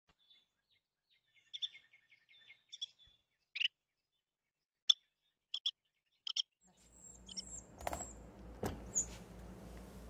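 Carolina wren giving short, sharp high calls and a brief rapid chattering run, heard through a security camera's microphone. Near the end the background hiss rises and there are a couple of sharp knocks.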